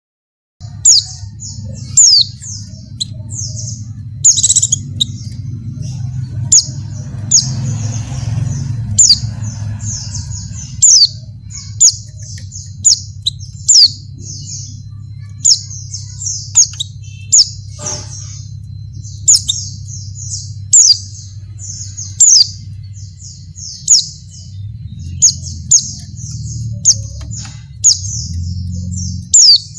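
Female white-eye (pleci) calling: dense, rapid high twittering with sharp, loud chirps recurring about once a second, over a steady low hum. The uploader presents it as a female in breeding condition calling for a male.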